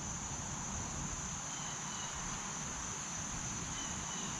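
Steady, high-pitched outdoor insect chorus droning without a break, over a low background rumble.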